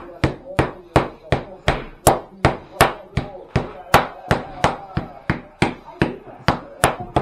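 Wooden rolling pin beating a slab of tourtière dough against a table, in a steady rhythm of about three blows a second. The dough is being worked round after round until it firms up.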